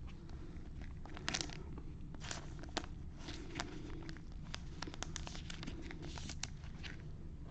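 Trading cards and their plastic packaging being handled: light, scattered clicks and crinkles.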